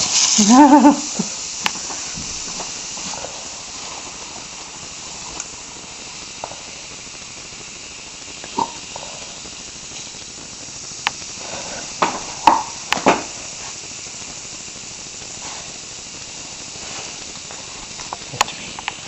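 Baking soda and vinegar fizzing in a model volcano: a steady high hiss that slowly dies down, with a few short pops.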